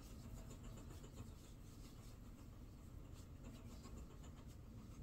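Near silence: faint room hum with a few soft, light scratchy rubs of hands working body cream into the skin.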